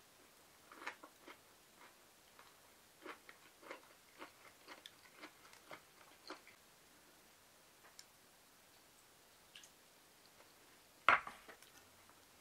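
Chopsticks and a ceramic plate being handled, with a scatter of light clicks and taps, then a sharper knock about eleven seconds in as the plate is set down on the wooden tray.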